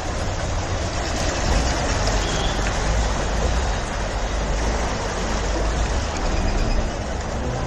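Steady rushing noise of floodwater flowing down a street, with a constant low rumble underneath.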